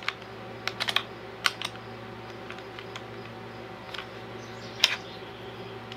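Scattered light clicks and taps from handling a mini electric chainsaw while its bar-cover nuts are loosened, plastic and metal knocking now and then, the loudest click near the end. A steady low hum runs underneath.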